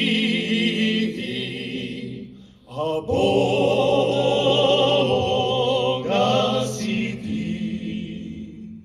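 Choir singing long held notes without words between verses of a religious song, the high voices wavering with vibrato over a steady lower part. The sound comes in three held phrases with a short break in between, and it fades away near the end.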